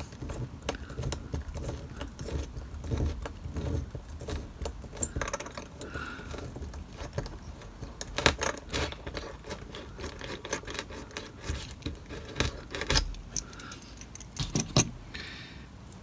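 A pin vice (small hand drill) twisted into a grassed model railway embankment beside a steel rule: a faint run of scratching and small metallic clicks, with a few sharper clicks in the second half.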